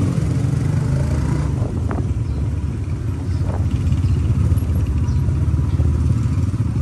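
Motorcycle engine running steadily while riding, a low, even pulsing note.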